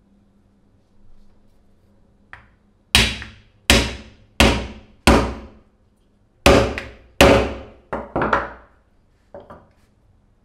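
Hammer striking a wooden block set on a tomahawk head, driving the head down onto its wooden handle: four hard, evenly spaced blows, a short pause, then about four more, with a couple of light taps near the end.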